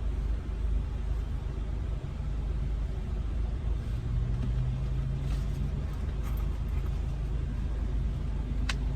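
Car engine running with a steady low rumble, heard from inside the car, with a low hum rising in the middle and one sharp click near the end.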